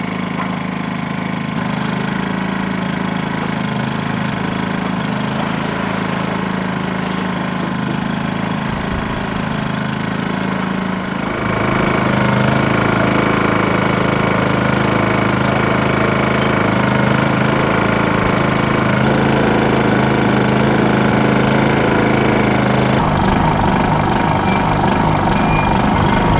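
Onboard generator running with a constant whirring drone, steady in pitch, getting a step louder about eleven seconds in.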